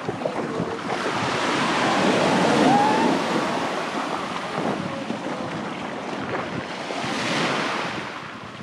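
Sea surf washing onto a beach, swelling twice as waves break, with wind buffeting the microphone.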